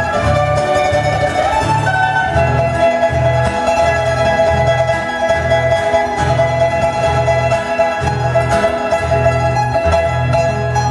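Solo classical guitar played as an instrumental: a sustained melody over a steady pulse of bass notes, about two a second.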